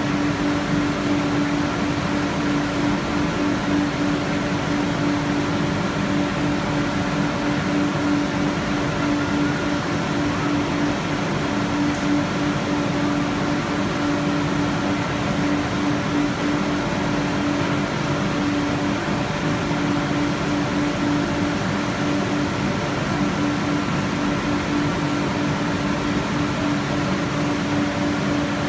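Conveyorised photo-etching etch/strip machine running steadily: a constant low hum with an even hiss over it.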